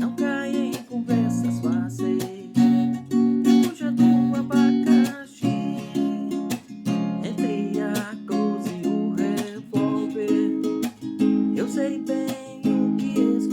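Music played on plucked string instruments: steady strummed and plucked chords with a wavering melody line over them.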